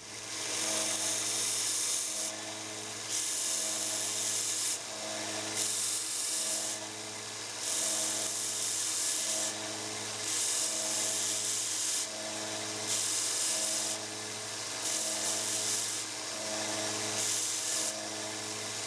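Small belt sander running steadily, with a rasping hiss each time the brass pin head in the awl's steel socket is pressed to the belt, about eight passes of one to two seconds: the epoxied pin is being sanded down flush.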